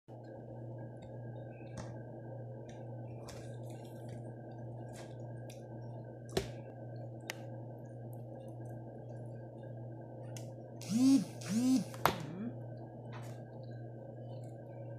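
Eating sounds: a metal fork clicking and scraping in a plastic takeaway tray of salad, and chewing, over a steady low hum. A louder pair of short sounds comes about eleven seconds in.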